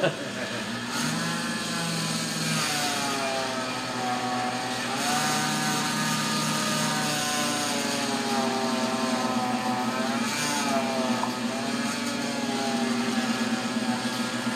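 Small electric motor driving a rose engine's belt-driven cutter through a rosette cut: a steady motor whine whose pitch slowly sags and rises again a couple of times. The motor has seen heavy use, and the owner expects it to give out.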